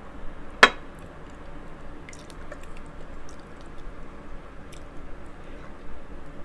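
Close-miked wet chewing and squishing of food in the mouth, with one sharp click about half a second in and a few faint small clicks after it.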